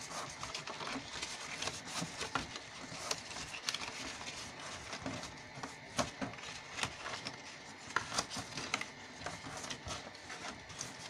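Heavy cardstock being folded by hand along its score lines: faint, irregular crackles, clicks and rustles as the card creases and slides on the table.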